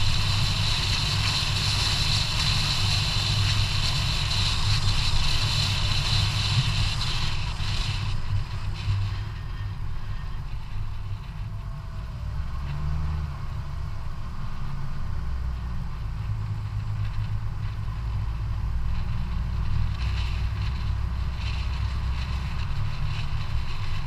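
Wind rushing over the microphone of a GoPro mounted low on a moving bicycle, with tyre and road noise: a steady low rumble, with a higher hiss that drops away about eight seconds in.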